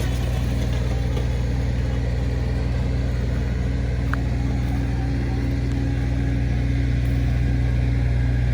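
ATV engine running at a steady idle, a constant low hum with no revving.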